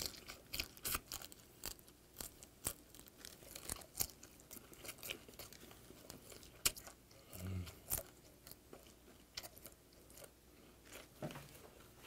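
Close-miked chewing of a salt-grilled whiteleg shrimp eaten shell-on, with irregular sharp crunches of the soft shell. A short low hum comes about seven seconds in.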